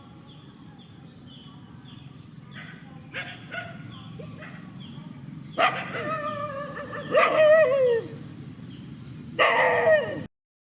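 Dog barking: a long, drawn-out bark that wavers and falls in pitch at its end about halfway through, then another loud bark near the end, after which the sound cuts off suddenly.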